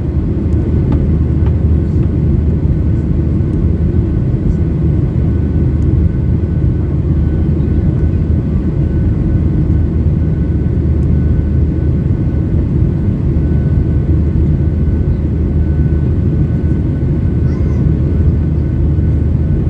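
Steady cabin drone of a Boeing 737-800 climbing after takeoff: the low rumble of its CFM56-7B engines and the airflow over the fuselage, with a faint thin whine above it.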